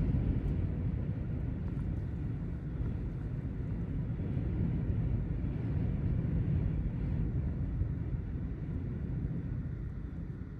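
Gusting Santa Ana wind buffeting the microphone: a low rumble that swells and eases, strongest near the start and around the middle, dying down toward the end.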